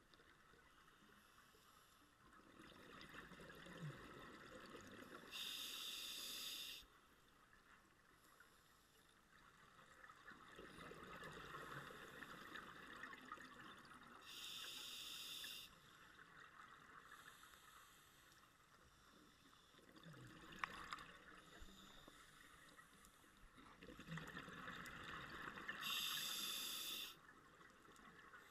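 A scuba diver breathing through a regulator underwater, three breath cycles about ten seconds apart: each a few seconds of bubbling exhaled air, followed by a short, steady hiss as the demand valve feeds the next inhalation.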